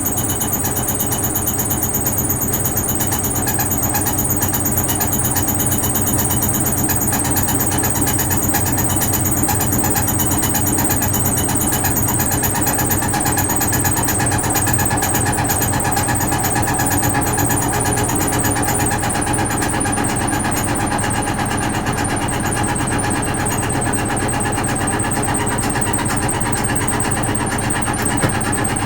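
Vintage Frigidaire Super Deluxe Automatic 50 front-loading washing machine running steadily, its motor and drum making a constant hum and whirr.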